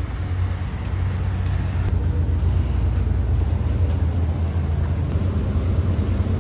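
Steady low engine rumble with a constant noisy wash, heard from inside a moving vehicle.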